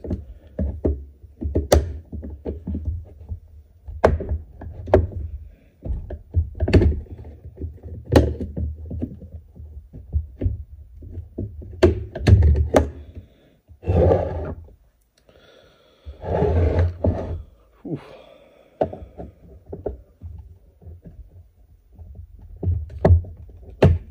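Irregular knocks, taps and clicks of tools and hands working on a metal amplifier chassis, with a couple of longer scraping or rustling bursts about 14 and 17 seconds in.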